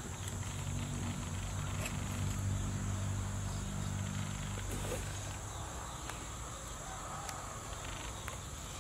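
Steady high insect chirring, with a low pitched hum that stops about halfway through, and a few light clicks of a metal spoon against a plate.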